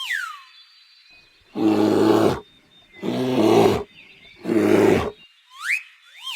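Bear roaring three times in short, rough, growling calls about a second apart. Thin, high whistling glides sound near the start and near the end.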